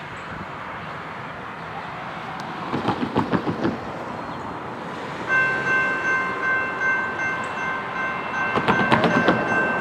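Approaching freight train, led by a Norfolk Southern GE AC44C6M locomotive, with a rising rumble and some clattering knocks. About five seconds in it sounds one long blast on its Nathan P5 five-chime air horn, a steady chord that holds to the end.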